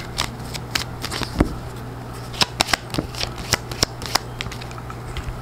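Tarot cards being gathered up and shuffled by hand: irregular quick card snaps and slides, busiest around the middle, over a faint steady low hum.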